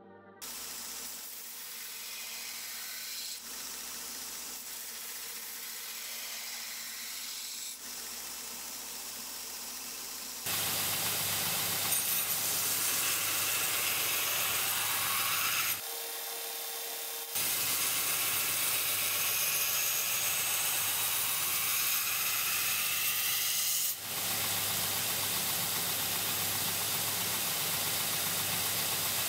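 Belt grinder grinding a steel bowie knife blade: a steady hissing rasp of the abrasive belt against the steel, broken into several edited stretches. It gets louder about ten seconds in, and for a second or two past the middle it gives way to a steady tone.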